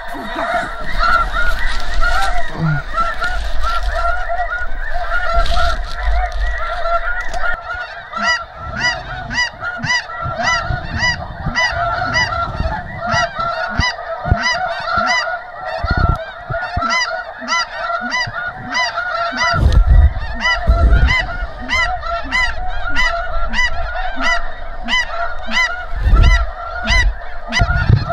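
Snow geese calling: a constant chorus of many overlapping high, yelping honks, with a few low thuds, the loudest about two-thirds through.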